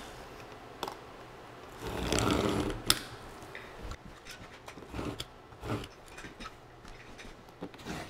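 Utility knife drawn along the metal edge of a stair tread gauge, scoring the plywood and tape of a floating shelf: one scraping stroke about two seconds in, followed by a sharp click. A few light knocks of the gauge being handled come later.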